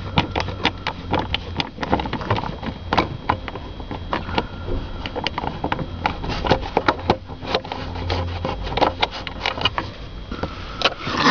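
Irregular clicks, taps and knocks of hands and tools working on a steering column's shifter parts, over a steady low hum.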